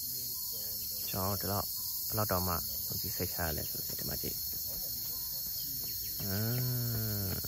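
Steady high-pitched insect buzzing from forest insects such as crickets or cicadas. A low voice is heard in short bursts around a second in, and makes one drawn-out sound near the end.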